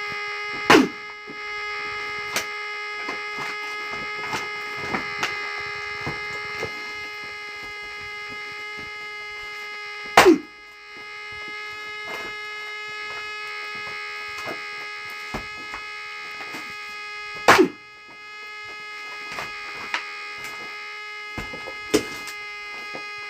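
An axe strikes oak firewood three times, several seconds apart, with a few lighter knocks between. A steady buzzing hum runs underneath.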